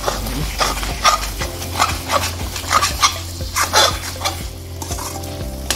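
A perforated metal skimmer spoon scraping and stirring a thick curry against the side of a metal pot, about two to three scrapes a second, over the sizzle of the food frying.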